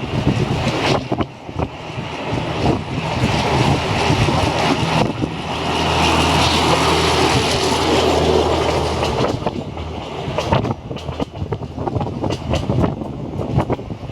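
Tsugaru Railway DD350 diesel locomotive hauling two old-type passenger coaches past. The engine drone is loudest a little past the middle, then the wheels clatter over rail joints as the coaches go by.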